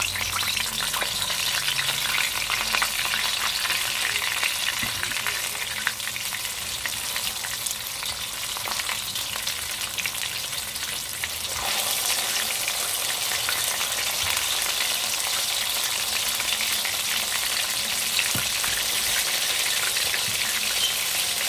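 Chicken wings sizzling with fine crackles in hot oil, being fried a second time to make them crispy. The sizzle grows louder about twelve seconds in as more wings go into the pot.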